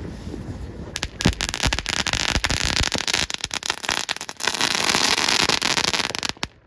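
Small consumer firework crackling: a rapid, dense run of sharp pops over a hiss, starting about a second in and cutting off suddenly near the end.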